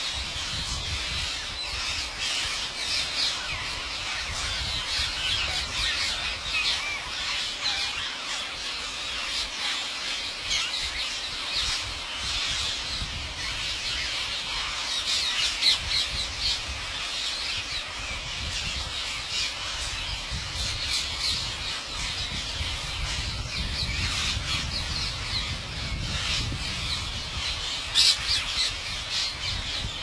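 A huge flock of rose-ringed parakeets calling all at once: a dense, unbroken chorus of shrill screeches.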